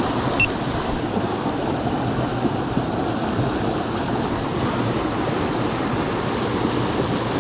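Water of a small creek rushing steadily.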